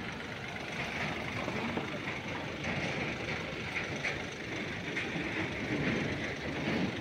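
Mahindra Bolero SUV running close by as it creeps over a rough road of loose rock and gravel, a steady engine-and-tyre noise.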